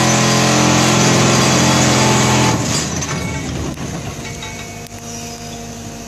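Excavator-mounted hydraulic vibratory plate attachment driving a steel pipe pile with a loud, steady hum. It shuts off suddenly about two and a half seconds in, leaving the quieter sound of the excavator's engine and hydraulics.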